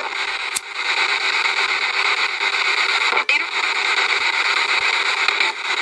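Spirit box (a radio sweeping through stations) giving out a loud, steady hiss of static, with two short clicks, about half a second in and just after three seconds.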